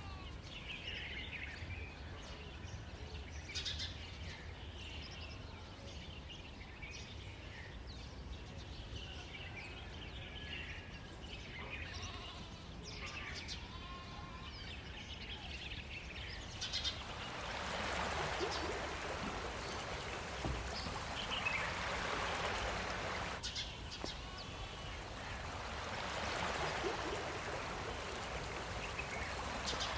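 Animal calls, bleats and chirps, over a low steady hum, then two long stretches of rushing, hissing noise in the second half.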